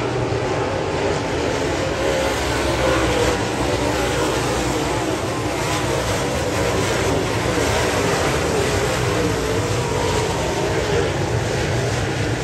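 A pack of dirt-track modified race cars racing around the oval, their engines running at full throttle in a loud, unbroken wall of sound.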